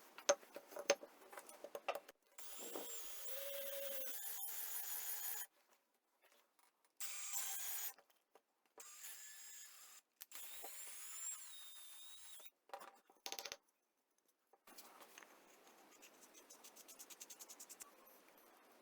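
A string of short, abruptly cut workshop sounds: sharp clicks and knocks at first, then several brief runs of a small power tool, one rising and falling in pitch. Near the end comes a faint ticking that quickens.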